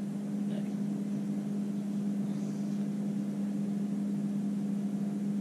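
A steady low hum with a constant background hiss, unchanging throughout.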